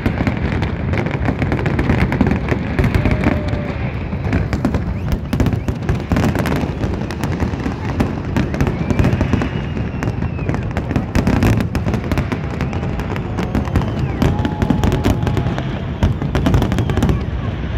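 Fireworks display: a dense, unbroken barrage of shell bursts and crackle, one report running into the next.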